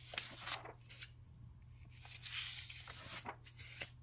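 Loose sheets of printer paper being turned over and shuffled by hand, in a few soft rustling swishes, the loudest about two seconds in.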